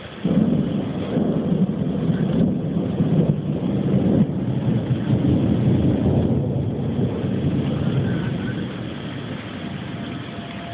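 A thunderclap that starts suddenly about a quarter second in and rolls on as a long low rumble, slowly fading over the next ten seconds.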